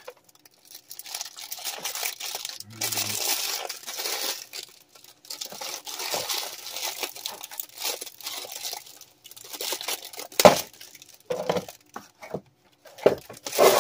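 Printed paper wrapping crinkling and tearing as it is unwrapped by hand from a toy part, in irregular rustles, with one sharper, louder crack about three-quarters of the way through.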